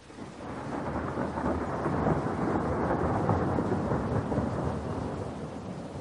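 A long roll of thunder over steady rain: the rumble swells about half a second in, is loudest in the middle and slowly dies away.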